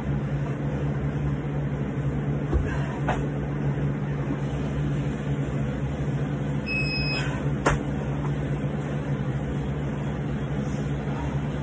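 Steady low mechanical hum, with a few scattered knocks and clicks as a man works through toes-to-bar on a pull-up bar. A short high beep sounds about seven seconds in, followed by a sharp click.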